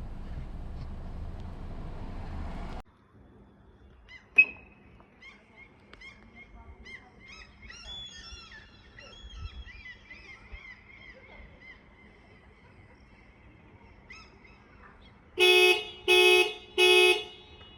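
Haval F7's horn sounding three short blasts in quick succession near the end, the car alarm going off. Earlier, a steady rushing noise cuts off suddenly about three seconds in, and a single sharp click follows a second and a half later.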